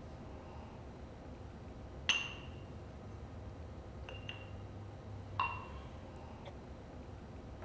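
Drinking glasses clinking as they are set down and stacked on one another, each clink ringing briefly. Two clear clinks come about two and five and a half seconds in, with a few lighter taps between.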